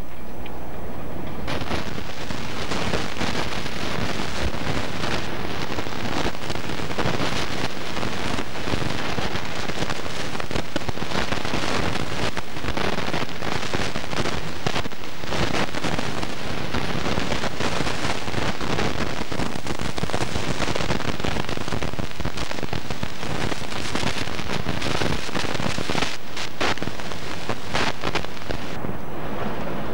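Strong wind blowing across the camcorder microphone: a loud, steady rush of noise full of rapid crackling buffets, with no voices.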